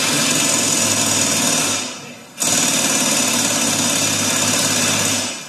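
Workshop machine driven by an electric motor, running loud and steady with a low mains hum. It winds down about two seconds in, starts again abruptly a moment later, then winds down again near the end.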